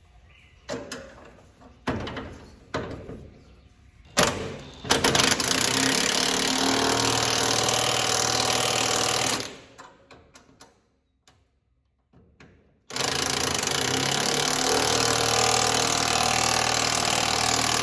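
Impact wrench hammering in two long runs of several seconds each, after a few sharp metal clanks.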